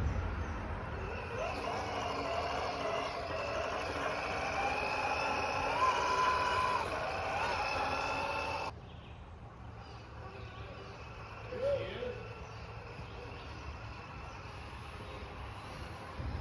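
Electric motor and gears of a small RC rock crawler whining, the pitch wavering up and down with the throttle. The whine cuts off suddenly a little past halfway, leaving a quieter background with one brief whine a few seconds later.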